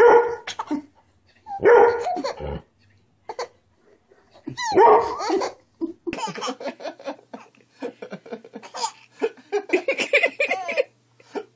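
A dog barking and a baby laughing at it, in three loud outbursts over the first half. Later come a baby's quick giggles and squeals.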